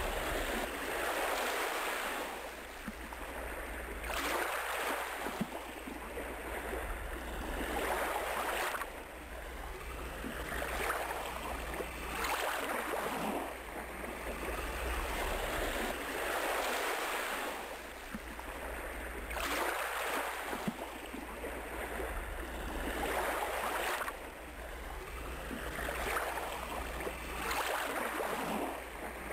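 Ocean surf: waves breaking and washing up a shore, swelling and falling back about every four seconds.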